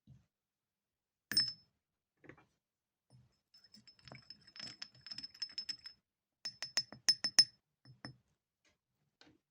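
Small hard objects clinking and tapping, such as metal tools and a copper coin being handled on a hard surface. A run of quick light ticks is followed by several sharper clinks with a faint high ring, the loudest about seven seconds in.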